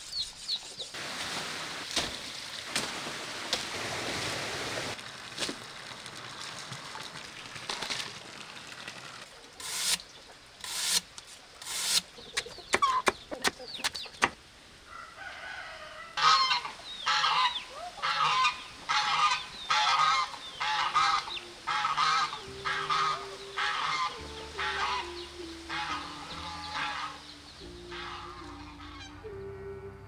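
Geese honking in a long run of repeated calls, about one a second, through the second half. A few sharp knocks come before the calls, and soft background music with a simple melody comes in under the honking.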